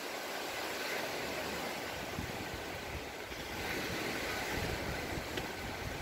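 Small sea waves washing onto a sandy beach, heard as a steady hiss, with wind rumbling irregularly on the microphone.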